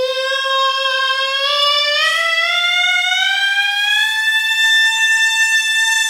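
A singer holding one bright, steely vowel in pharyngeal voice, gliding slowly upward from about C5 to A5.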